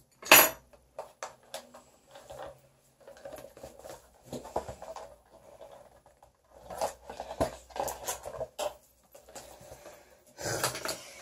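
A boxed lipstick set being handled: cardboard rustling with scattered clicks and clinks, and a brief loud clatter about half a second in.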